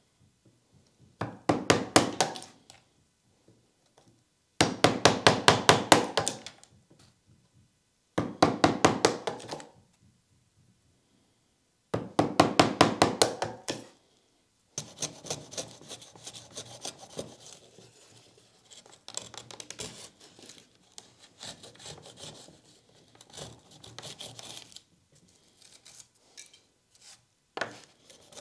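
Hand tools working wood: four loud bursts of rapid, even strokes, each lasting a second or two, with short pauses between them. From about halfway on comes a quieter, continuous scraping with small knocks.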